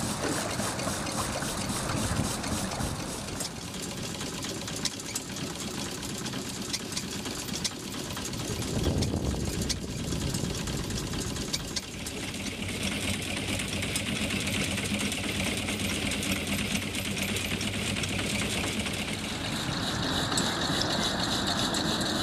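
Small single-cylinder steam engine of a steam launch running with a steady mechanical clatter. A hiss of escaping steam comes in about halfway through and grows stronger near the end.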